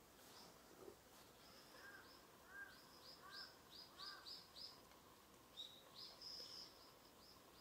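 Faint birdsong in woodland: short high chirps repeated in quick runs of several a second, with a few lower chirps mixed in during the first half.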